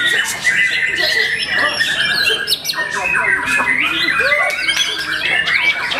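Several caged white-rumped shamas (murai batu) singing over one another: a dense tangle of whistles, pitch glides and rapid trills.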